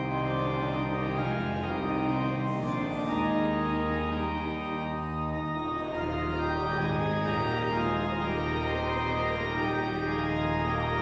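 Church organ playing slow, sustained chords, the harmony shifting every second or two.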